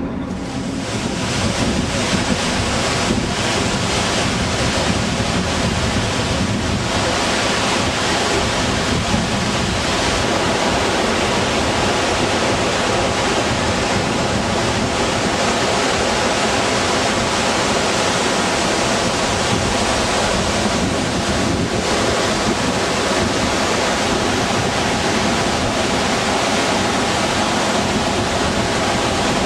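Waterfall: a loud, steady rush of falling water that swells up about a second in and then holds.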